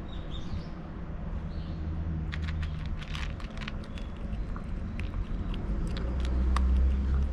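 A cat crunching dry kibble: quick runs of sharp crunches starting about two seconds in, over a low rumble that swells near the end.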